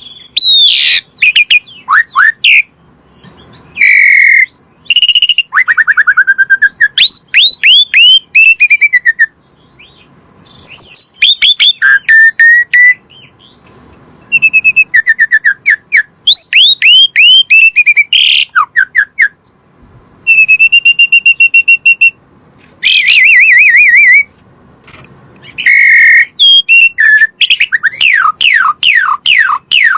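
Asian pied starling (jalak suren) singing loudly and persistently: phrases of clear whistles, quick runs of downward-sliding notes and a held steady whistle, broken by short pauses.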